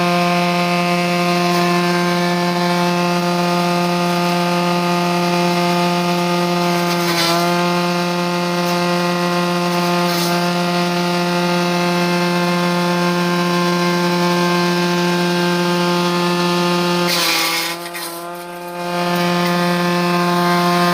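Electric grass chopper with a 2 hp motor running at speed: a steady, high-pitched mechanical hum. The hum sags briefly about seven seconds in, and near the end it drops away for about a second with a rush of noise before picking back up.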